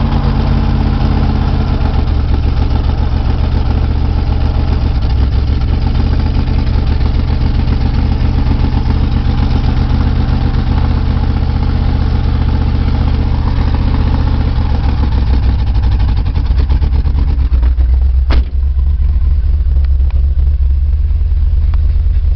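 A Dodge's engine running steadily at idle, a loud low rumble with fine rapid pulsing. A single sharp click about eighteen seconds in.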